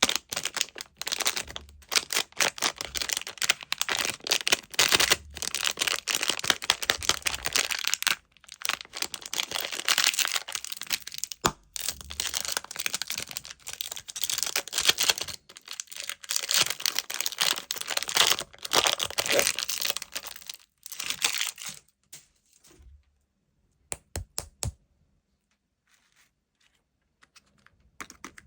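Candy packaging being opened by hand: plastic wrappers crinkling and tearing in dense runs of crackles and clicks. About three-quarters of the way through it thins to a few separate clicks with near-silent gaps.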